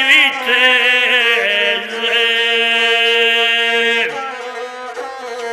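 Guslar singing a line of Montenegrin epic verse to the gusle, drawing out the last word in a long held note that breaks off with a downward slide about four seconds in. The bowed single string of the gusle keeps playing on alone after that.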